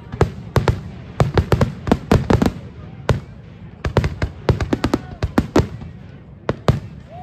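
Aerial fireworks display: shells bursting in quick volleys of sharp bangs, several a second, with a short lull about six seconds in.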